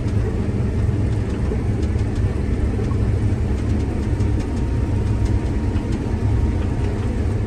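New Holland combine harvester running steadily while cutting soybeans, a steady low drone from the engine and threshing machinery heard from the operator's seat.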